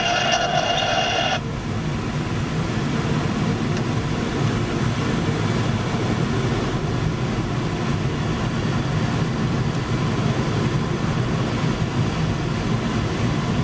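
Steady wind noise of air streaming past the cockpit and canopy of a Windward Performance Sparrowhawk ultralight sailplane in engineless gliding flight, low and even. A higher-pitched sound stops abruptly about a second and a half in.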